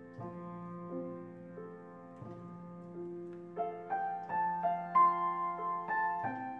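Background piano music: a gentle melody of single notes over held low notes, growing a little louder and higher in the second half.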